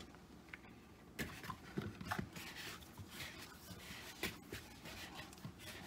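Hands kneading a soft, still slightly wet whole wheat dough in a plastic mixing bowl: faint, irregular rubbing and pressing, with a few soft knocks of hand and dough against the bowl.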